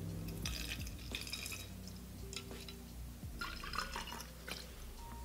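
Rubbing alcohol (91%) pouring from a plastic bottle into a cup, in two spells: one about half a second in, lasting about a second, and a shorter one a little past three seconds.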